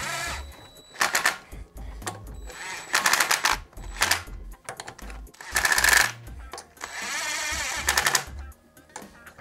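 Cordless impact wrench run in about half a dozen short bursts, hammering as it snugs a wheel's lug nuts down.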